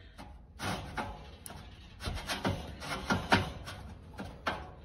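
Irregular clunks and rattles of metal parts as a shim is worked into its slot in a Vendo 720 soda vending machine's can column, with a cluster of knocks in the middle.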